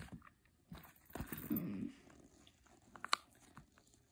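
Faint, scattered clicks and soft pops from a silicone pop-it fidget toy being pressed and handled, with a short low hum about a second and a half in.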